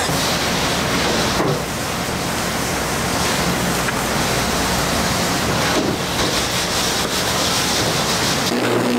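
Steady rushing kitchen noise. Near the end it gives way abruptly to the steady hum of an electric immersion blender's motor, used to blend the tomato pizza sauce.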